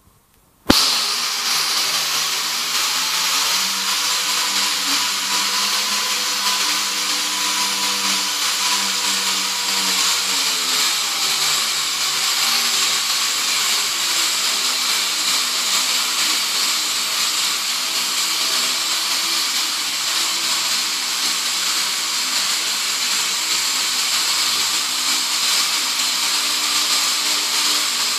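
Loud, steady mechanical whirring with a strong hiss, starting abruptly about a second in, with faint tones that drift in pitch.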